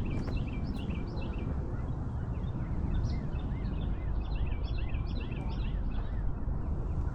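Wild birds chirping and calling in a dawn chorus of many short, quick notes, over a low steady rumble.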